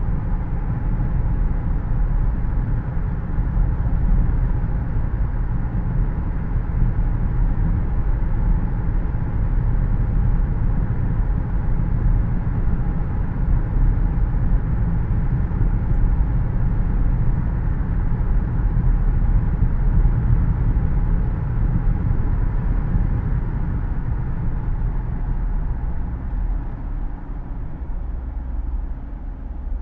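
Car driving, heard from inside the cabin: a steady low rumble of tyres and engine with the air-conditioning fan's hiss over it. The level eases a little near the end.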